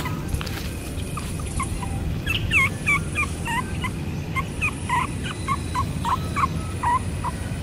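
A young puppy whimpering in a run of short, high whines and yips, a few a second, starting about a second in. A steady low rumble runs underneath.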